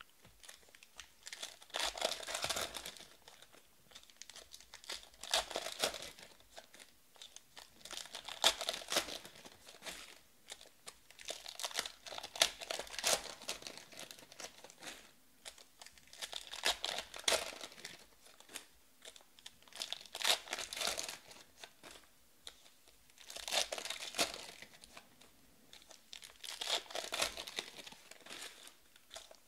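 Foil wrappers of Panini Prizm Draft football card packs being torn open and crumpled by hand, one pack after another, in crinkling bursts every three or four seconds.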